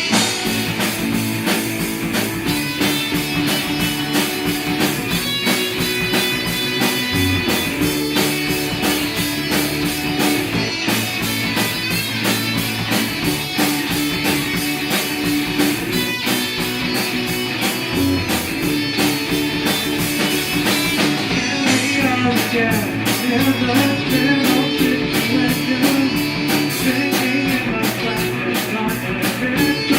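A band's demo recording of an original rock song: guitar over a steady beat that briefly drops out twice.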